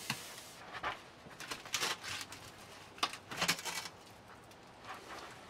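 Sheet-metal stovepipe section being worked loose and pulled off a small wood stove's flue: a series of short, irregular scraping and knocking noises, loudest a little past halfway.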